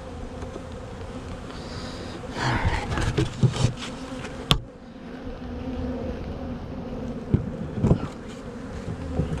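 Honeybees buzzing around an open hive in a steady drone. Several knocks and clicks from hive parts being handled cut in, the sharpest about four and a half seconds in.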